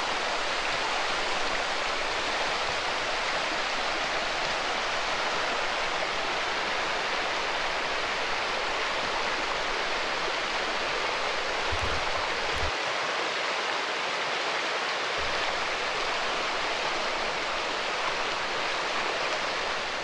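Steady rush of a fast, shallow river running over stones and riffles.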